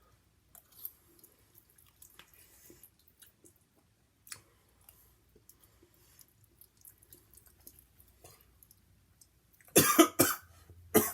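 Faint small clicks and mouth sounds while eating, then, about ten seconds in, a sudden loud burst of coughing as food goes down the wrong pipe.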